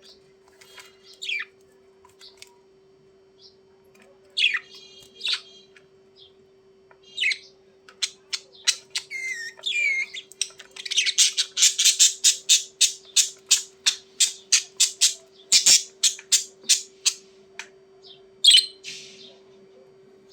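Budgerigars chirping and squawking in short scattered calls, then a long run of sharp, rapidly repeated notes about three a second, loudest in the middle. A faint steady hum lies underneath.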